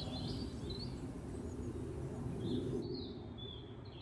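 Small woodland birds chirping now and then, short high calls, over a steady low rumble that fades toward the end.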